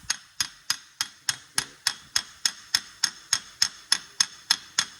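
Evenly spaced sharp metallic clicks, about three a second, each ringing briefly: a steel tool working at the van's front wheel hub.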